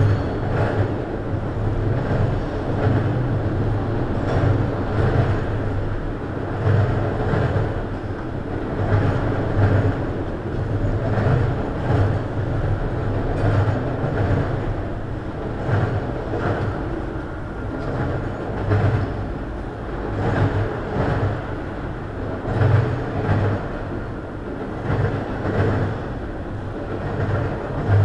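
A freight train of multilevel autorack cars rolling past close by: a steady rumble of wheels on rail with a repeating clickety-clack about once a second as the wheel sets pass.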